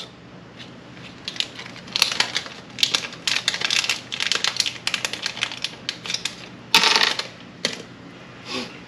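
A plastic-and-card packet of large steel circle hooks being opened and handled: a run of crinkles and small clicks, as the hooks rattle out onto the workbench. A denser burst comes about seven seconds in.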